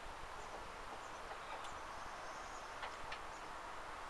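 Quiet outdoor background with faint bird chirps and a few light clicks of the metal tow hitch bar being handled and hooked into place.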